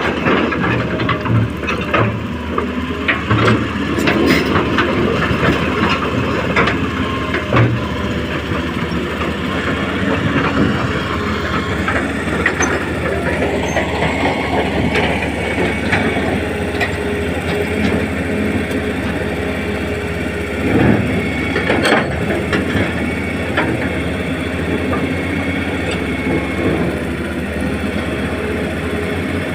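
Radio-controlled model excavator at work: its motor and hydraulic pump running with a steady whir, with scattered short knocks and scrapes from the bucket digging and dumping sand.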